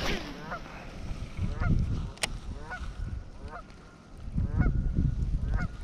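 A goose honking repeatedly, about one call a second, over patches of low rumble, with a single sharp click a little after two seconds in.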